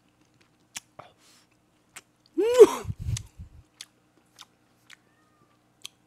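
Close-miked chewing of a mouthful of hot kimchi stew: scattered small wet mouth clicks, with one short vocal cry rising and falling in pitch about two and a half seconds in, a reaction to the food being too hot.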